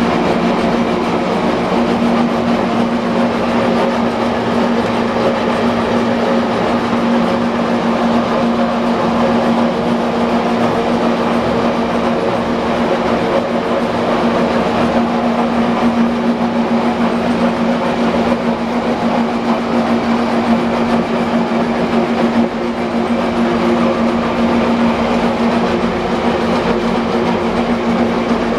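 5D32 gear hobbing machine running steadily while its worm hob cuts a helical gear: a continuous mechanical drone with a steady hum over dense gear-train rattle.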